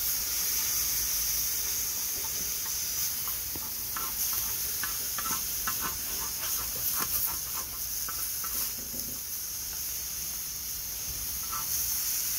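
Mixed carrots and bell peppers sizzling in hot oil on a Firedisc steel cooking disc, with a steady hiss. A spatula scrapes and taps on the steel now and then as the vegetables are stirred.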